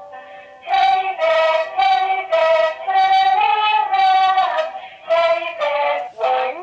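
Talking Tom cat toy singing a song in a high-pitched electronic voice over a simple electronic tune. The tune plays softly on its own at first; the loud singing comes in just under a second in.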